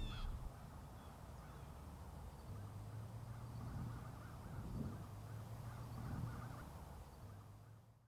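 Faint outdoor ambience with a low hum, fading out near the end.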